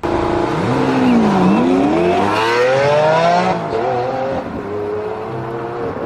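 Race car engine sound revving: it starts suddenly, the pitch dips about a second in, then climbs steadily and levels off into a steady run, with a rushing hiss over the climb.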